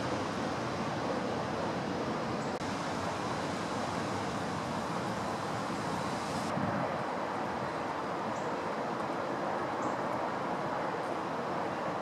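Strong wind blowing through the trees and over the microphone, a steady rushing noise with a faint steady hum beneath it.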